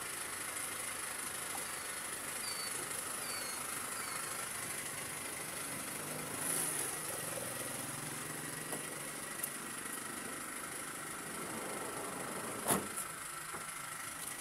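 A vehicle engine idling steadily, with one sharp click near the end.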